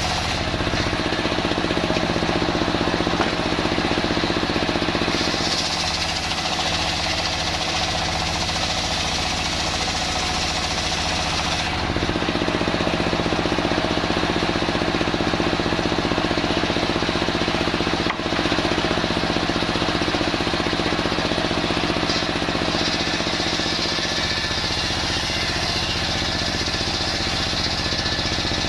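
Homemade circular-saw rig running steadily while its blade saws through old waru timber; the engine's drone holds constant as the sound of the cut changes several times along the way.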